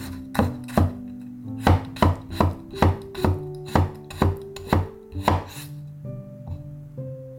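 Knife chopping garlic on a wooden cutting board: about a dozen quick, uneven chops over some five seconds, then stopping. Soft plucked-string music plays underneath.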